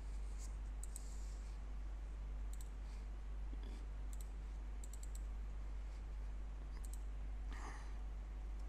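A dozen or so soft computer mouse clicks, scattered and some in quick pairs, over a steady low hum.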